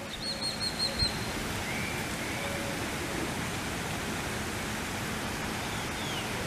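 Steady outdoor rushing noise, with a quick run of about five short high chirps in the first second and a few faint short calls after.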